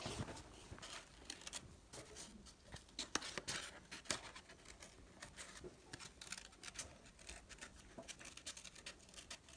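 Small children's scissors snipping through paper: a run of quiet, irregular snips with light paper rustling.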